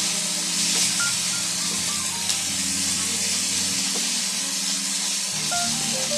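Background music with held low notes and a short stepping melody, over the steady sizzle of shredded chicken frying in a pan as it is stirred with a spatula.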